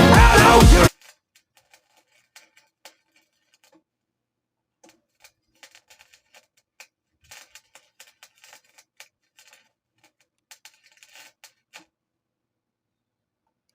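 Electronic dance music that cuts off suddenly about a second in, followed by faint, scattered light clicks and ticks.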